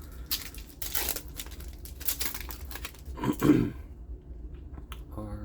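A trading-card booster pack's foil wrapper being torn open and crinkled, a quick run of ripping and crackling, then one louder handling noise about three and a half seconds in.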